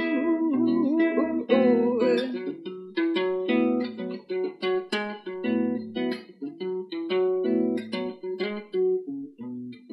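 Archtop electric guitar playing a slow, clean accompaniment of chords and single notes with low bass notes underneath. A woman's sung line with vibrato rides over it for the first two seconds or so, then the guitar plays on alone.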